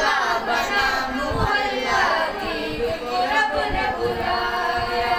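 A boy singing a naat, a devotional poem in praise of the Prophet, into a microphone without any instruments: one voice carrying a continuous melody with held, bending notes.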